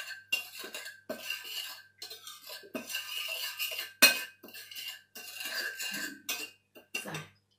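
A spoon scraping and clinking around a bowl in repeated short strokes, mixing a chili dressing, with one sharp knock against the bowl about four seconds in.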